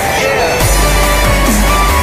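Loud background music with a heavy bass line and a repeating beat.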